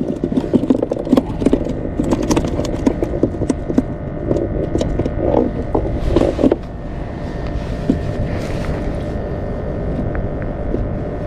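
Irregular knocking and clattering against a plastic fishing kayak's hull as gear and catch are handled, dying away after about six seconds into a steady low rumble.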